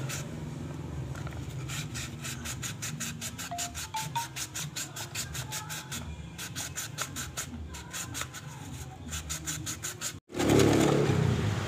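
Fine sandpaper wetted with diesel rubbed back and forth by hand over an oversize piston: a quick rasping scrape several strokes a second, with a couple of short pauses, as the piston is trimmed to slide into the cylinder bore. A low rumble runs underneath and turns louder after a brief cut near the end.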